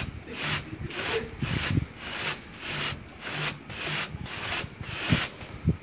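A metal hand tool scraping back and forth along the edge of a steel mould holding a lightweight concrete block, about two rasping strokes a second. This is the block being cleaned and cut loose from the mould before it is pulled out.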